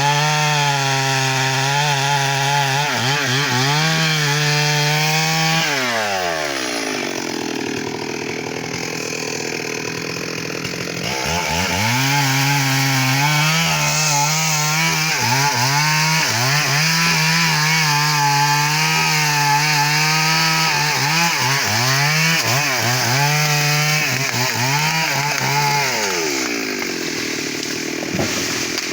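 Stihl MS 382 two-stroke chainsaw cutting mahogany at full throttle, its pitch dipping slightly under load. About six seconds in the engine falls to a low idle, revs back up around eleven seconds to cut again, and drops back near the end.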